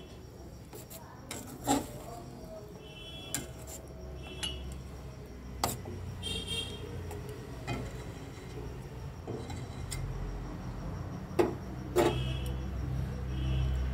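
Metal spatula stirring and scraping a thick, sticky olive and jaggery pickle in a stainless steel pan, with scattered clinks of metal on metal, some ringing briefly.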